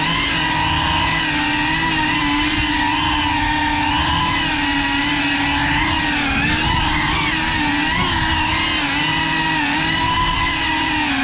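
GEPRC CineLog 35 ducted 3.5-inch cinewhoop quadcopter's motors and propellers whining in flight, a steady multi-toned whine whose pitch wavers slightly with the throttle.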